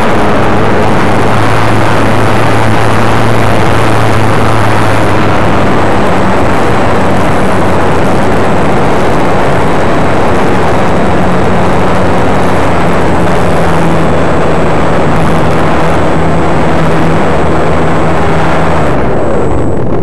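Propeller and motor of an E-flite Eratix RC model plane running during its takeoff run and climb, heard from a camera on the plane: a steady drone mixed with heavy wind rush on the microphone. The drone's pitch steps up partway through, and near the end the hiss falls away.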